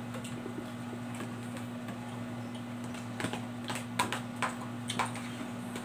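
Metal spoon clicking and scraping against a plastic food container, a handful of sharp clicks in the second half, over a steady low electrical hum.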